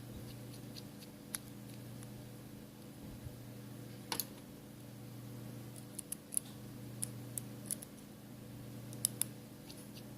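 Small metal hand tools clicking and tapping on the parts of an opened iPhone 5s during repair: about ten short, sharp clicks at irregular intervals, some in quick pairs, over a steady low hum.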